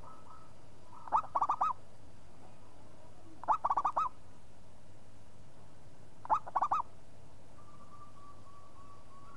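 Zebra dove (perkutut) singing: three short phrases of quick, rolling cooing notes a couple of seconds apart, each about half a second long.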